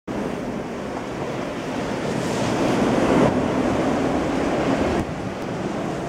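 Blizzard wind blowing in gusts and buffeting the microphone, a steady rushing noise that swells to its strongest about three seconds in and drops back suddenly near five seconds.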